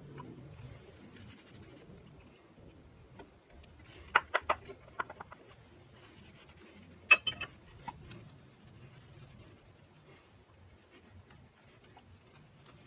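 Brake caliper slide pins being handled and wiped with a shop rag: soft rubbing, with a quick cluster of sharp clicks about four seconds in and another about seven seconds in.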